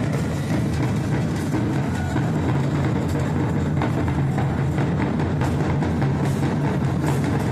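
Congado drums played live: a group of hand-carried drums beating a steady rhythm.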